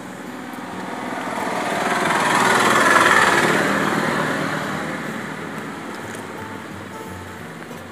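A motor vehicle passing by, its engine and road noise growing louder to a peak about three seconds in and then fading away.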